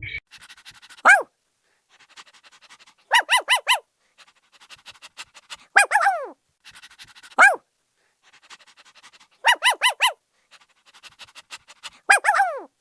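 A dog barking in short bursts of one to four high yaps, each dropping in pitch, with quick faint panting between the bursts.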